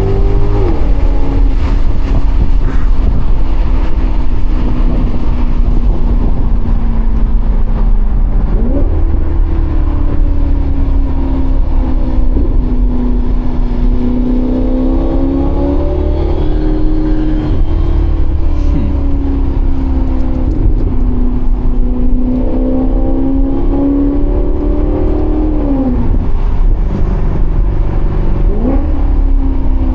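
Maserati GranCabrio's Ferrari-derived 4.7-litre V8 running under way. The exhaust note rises and falls slowly with engine speed, with a few quick jumps in pitch at gear changes.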